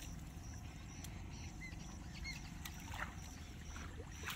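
Wet cast net being hauled out of pond water at the bank: water sloshing and dripping, with a few short knocks. Short chirps and a regular high-pitched pulse, repeating a couple of times a second, run behind it.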